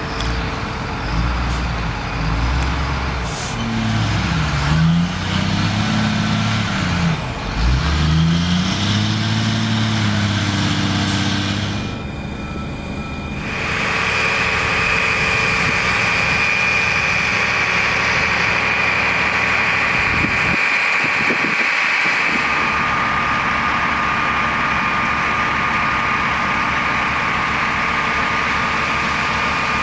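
Heavy military trucks running, their engines rising and falling in speed for the first dozen seconds. After a short dip, a steady high whine carries on over the engine sound.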